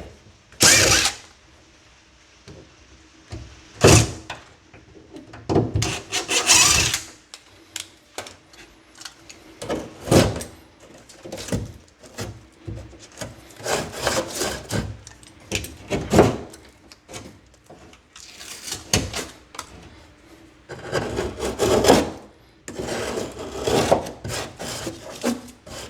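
Irregular scraping, rubbing and knocking of tools against drywall and wood during hand work on a wall opening, in separate bursts with pauses between.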